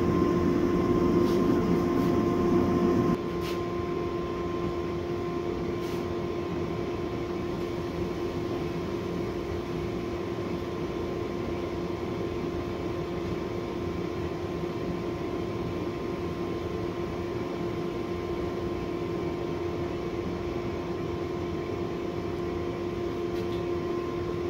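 Gas forge burner running with a steady roar and a constant hum. It drops a little in loudness about three seconds in, then holds steady.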